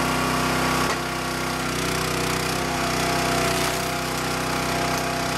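Cub Cadet hydraulic log splitter's small gas engine running steadily, its tone shifting and its level dipping slightly about a second in.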